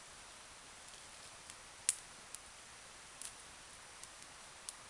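Small campfire of sticks crackling: a few sharp, irregular pops over a faint steady hiss, the loudest about two seconds in.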